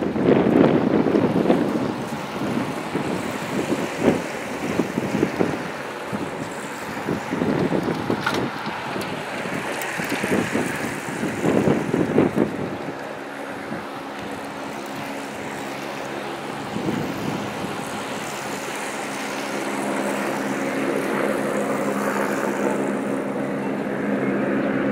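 Wind buffeting the microphone in gusts. From about halfway, a steady pitched hum comes in and grows slightly louder toward the end.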